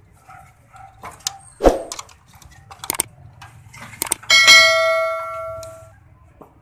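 A few sharp knocks and clicks, then a single bright bell ding about four seconds in that rings and fades over a second or two: the click-and-ding sound effect of a subscribe-and-notification-bell animation.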